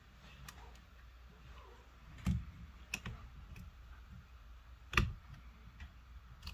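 Scattered small clicks and taps of hand tools and small parts against a smartphone's frame and internal parts, the two loudest about two seconds and five seconds in.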